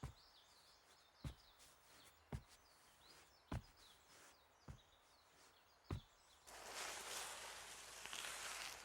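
Faint soft taps, about one every second, then a steady hiss that sets in about two-thirds of the way through.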